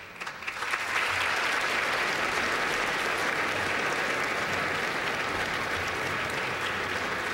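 A large seated audience applauding, building up over the first second and then holding steady.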